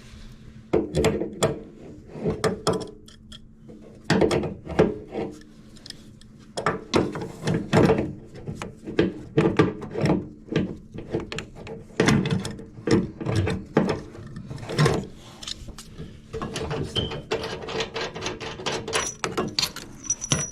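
Irregular knocking, clicking and scraping of hand tools against metal faucet fittings while the fittings are seated and tightened.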